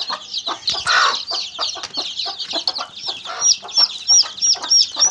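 A brood of newly hatched chicks peeping constantly in many overlapping high chirps. From about three seconds in, one chick's louder peeps stand out, repeating about three times a second.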